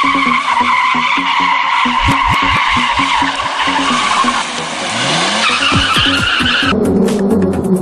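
Mercedes-Benz W123 coupe's tyres squealing in a sustained screech as the car slides and spins its rear wheels on concrete, with the engine pitch rising about five seconds in. Electronic music with a steady beat cuts in abruptly near the end.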